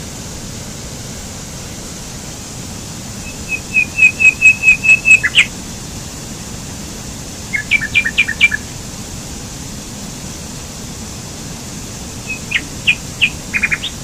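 Steady rush of a small waterfall cascading over rocks, with a songbird singing short phrases of quick chirping notes: a fast run of notes about three to five seconds in, a brief burst near the middle and another near the end.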